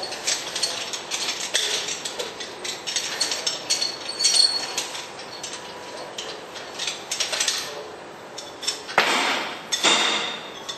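A hand-operated wheel-nut tool, the Nutcracker, worked on a truck's wheel nut: irregular metallic clicks and clinks, with two louder bursts of noise near the end.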